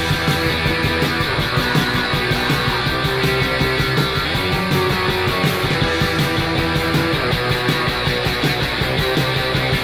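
Post-punk noise rock played by an electric guitar, bass and drums band, dense and loud with a steady driving beat.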